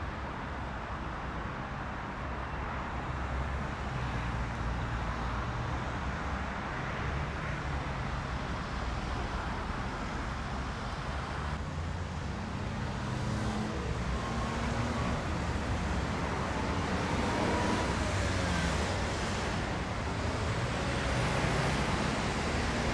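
Steady road traffic noise, a low rumble with a hiss over it, growing slightly louder toward the end.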